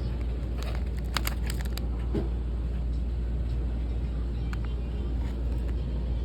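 A steady low rumble with a handful of light clicks, bunched about a second in.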